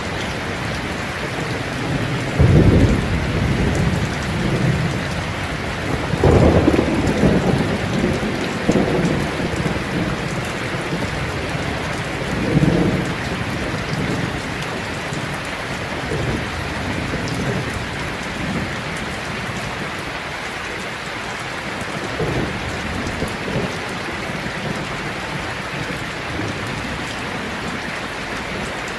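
Heavy rain falling steadily, with rolls of thunder. The loudest rumbles come about two and a half seconds in, around six to nine seconds in and near thirteen seconds, and fainter ones follow later on.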